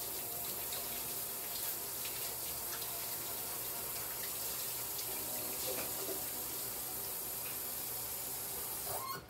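Kitchen tap running in a steady stream, cut off near the end.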